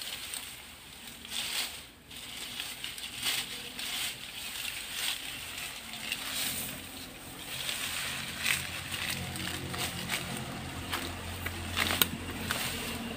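Lemongrass stalks and their dry leaves rustling and crackling as a clump is grabbed and pulled by hand, with scattered sharp snaps. A low motor hum comes in about halfway through and grows louder.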